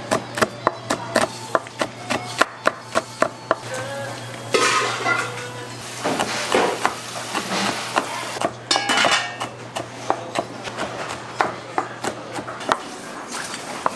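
Kitchen work: a knife striking a wooden cutting board in quick strokes, about four a second for the first few seconds, then clattering and scraping of dishes and utensils. A steady low hum runs underneath and stops about a second before the end.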